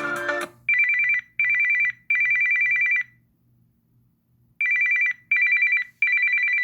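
Galaxy S21 Ultra built-in ringtone imitating an old telephone bell: a rapid trilling two-tone ring in two short bursts and a longer one, a pause, then the same pattern again. The tail of a guitar ringtone cuts off about half a second in, just before the ring starts.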